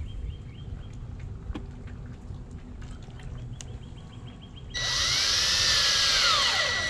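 Ridgid cordless drill driving a screw into a wooden piling, in one burst of about two seconds near the end. The motor whine climbs in pitch and then drops as it bears down.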